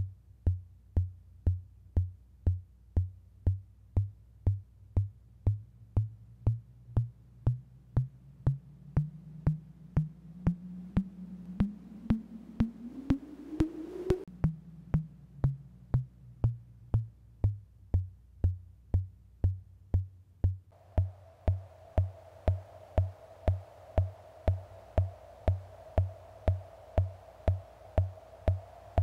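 Analog bridged-T op-amp percussion oscillator, pulse-triggered, giving short low bass-drum-like thumps at about two a second. In the middle a ringing tone glides steadily up in pitch for several seconds and then stops; later a steady, higher tone rings on alongside the thumps.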